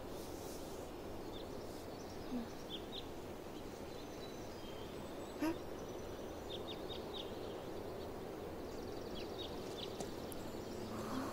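Quiet background ambience: a steady low hiss with small birds chirping now and then in short, high chirps, a few at a time. A single brief click sounds about halfway through.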